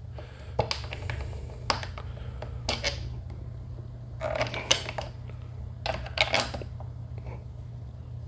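Scattered light metallic clinks and taps as mirror mounting bolts are handled and started by hand into a carbon fiber mirror base.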